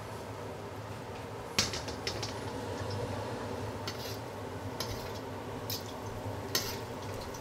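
Crushed garlic sizzling gently in oil in a wok over a low flame, to infuse the oil, over a steady low hum. A metal ladle clicks and scrapes against the wok a few times, the sharpest click about a second and a half in.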